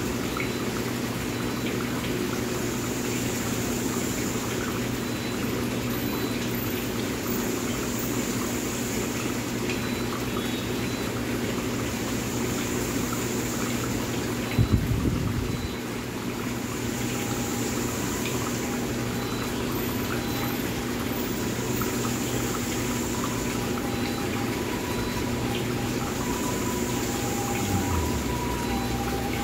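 Large aquarium's air stones bubbling and water splashing steadily, over a low steady hum. A brief thump about fifteen seconds in.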